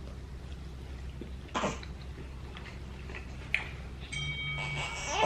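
A single cough about a second and a half in, then a short click, and near the end a thin, steady high-pitched sound lasting about a second.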